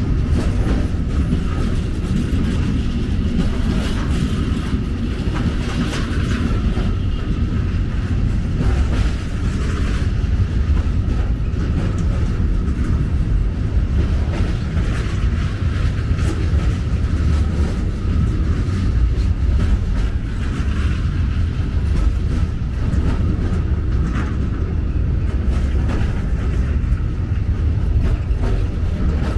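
Container freight train wagons rolling past at close range: a steady, loud rumble of wheels on rail with faint clicks running through it.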